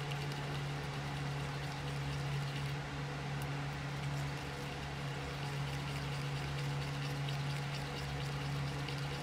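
A steady low hum throughout, with faint scraping and swishing from a wooden stick stirring thick nail polish in a small plastic cup.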